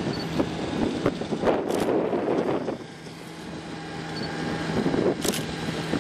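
Kominato Railway KiHa 200 diesel railcar approaching, its diesel engine running with a low steady hum. Wind gusts buffet the microphone twice, once under two seconds in and again near the end.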